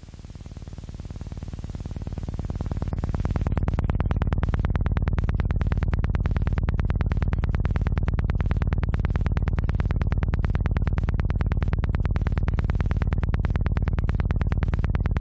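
Synthesized electronic tone pulsing rapidly and evenly, the first tone on the tape, made to match the alpha brain-wave rhythm. It fades in over the first few seconds, then holds steady and loud, its weight in a low hum.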